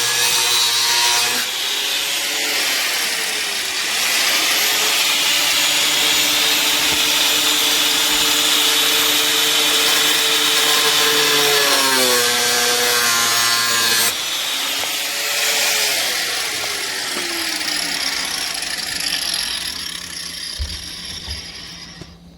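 Handheld power saw cutting through a dash bracket, its motor whining steadily under the cut. About twelve seconds in the motor slows, then picks up again, and over the last few seconds it winds down and stops.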